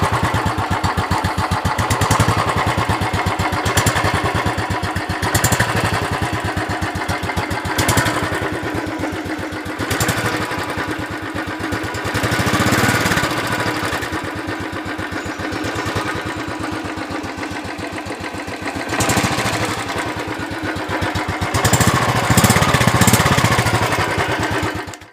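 Royal Enfield Thunderbird 350's twinspark single-cylinder engine running at idle with its steady thump. The throttle is blipped several times so the revs briefly rise, the biggest rise coming near the end.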